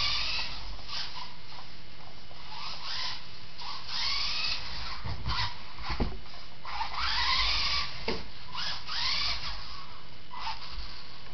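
Electric motor of a radio-controlled model car whining up and down with short stabs of throttle, its pitch rising with each rev, about six times. There are a few sharp knocks, the clearest about six and eight seconds in.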